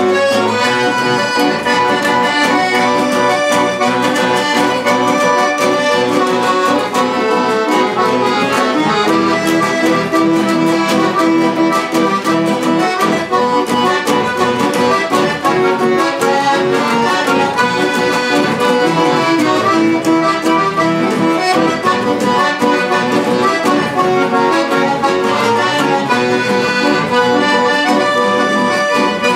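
Chamamé played live on a piano accordion, with two acoustic guitars strumming and plucking along.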